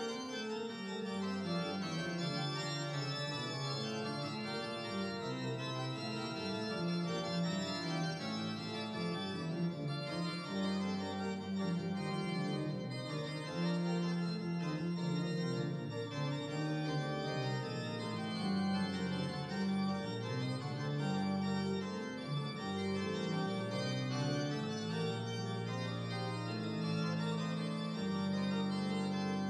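Organ music playing slow, held chords.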